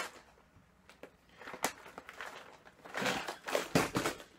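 Plastic tackle boxes being handled: a sharp plastic click at the start, a couple of light taps, then a run of knocks and rustling about three seconds in as another box is picked up.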